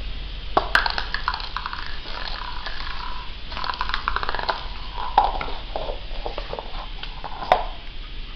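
Shih Tzu puppy scampering about on a tile floor: quick clicking and tapping all through, with a few sharper knocks, one about half a second in, one about five seconds in and one near the end.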